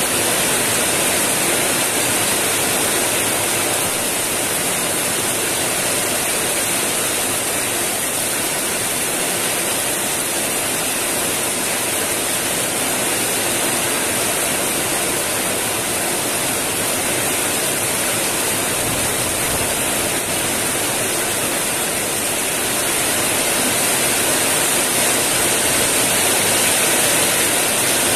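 Heavy rain pouring down steadily: a dense, even hiss of downpour that grows a little louder near the end.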